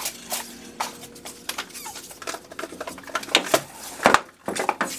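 Shoes and metal shoe-rack rails being handled: an irregular string of light knocks and clatters, loudest about three and a half and four seconds in.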